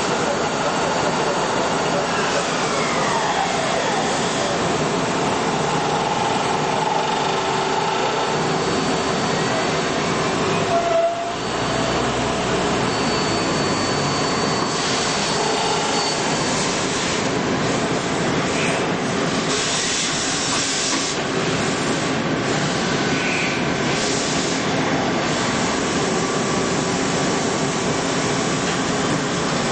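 Multi-tasking CNC lathe running through its cycle: a steady wash of machine noise with several held whines, one falling in pitch a few seconds in, briefly interrupted about eleven seconds in.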